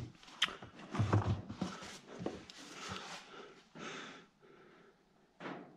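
Gear oil pouring from a metal can into an open tractor-loader gearbox housing, in irregular glugs with a few knocks of the can.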